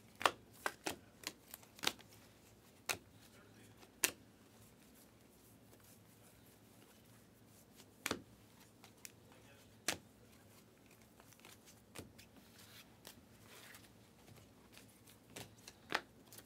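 Panini Prizm trading cards being flipped one at a time off a stack held in the hand, each card slipping off with a sharp snap. The snaps come quickly in the first few seconds, then singly every couple of seconds.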